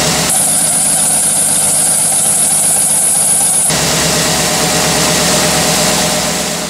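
Cadillac Escalade ESV's 6.2-litre Vortec V8 idling steadily. From about a third of a second in to nearly four seconds in, the sound changes abruptly, with a steady high whine over the idle, then switches back just as suddenly.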